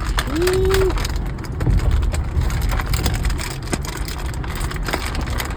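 Plastic toy packaging crinkling and crackling in irregular clicks as it is handled and pulled apart, over a steady low rumble of the car.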